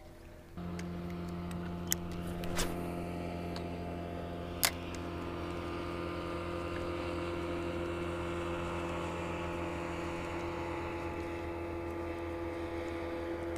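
Bow-mounted electric trolling motor switching on about half a second in and running with a steady hum, with a few sharp clicks over it.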